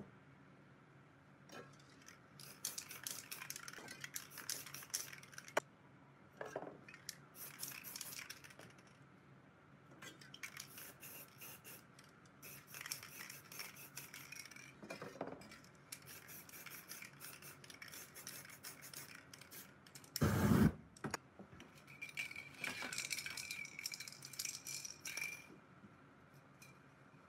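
Aerosol spray-paint cans, their mixing balls rattling as the cans are shaken, with stretches of spray hiss as paint is sprayed. A single dull thump about twenty seconds in.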